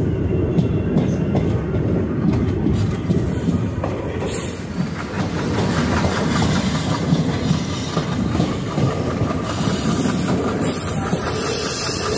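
Passenger train running on the track, heard from on board: a steady rumble with the clickety-clack of the wheels over the rail joints. A high-pitched wheel squeal joins near the end.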